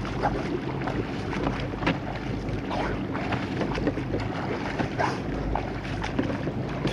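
Water splashing with a swimmer's front-crawl arm strokes, about once a second, over a steady low hum and wind on the microphone.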